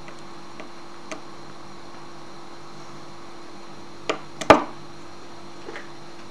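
A screwdriver clicking and knocking against a breadboard variable resistor as it is turned, with a sharp knock about four and a half seconds in, over a steady electrical hum.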